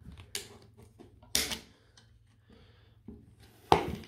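Side cutters snipping through the tabs of the old circuit board on a Makita 18 V lithium-ion pack: four sharp snips and clicks, with a loud one about a second and a half in and the loudest near the end.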